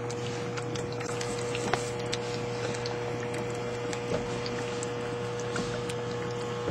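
Hydroxy electrolysis rig running on boost: a steady electrical hum from its power supply under a faint crackling fizz, with scattered small ticks.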